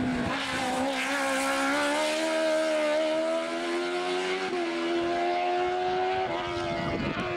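Race car engine accelerating hard out of a hairpin, its note climbing steadily as it pulls away up the hill, with a break in the note about four and a half seconds in and again near the end.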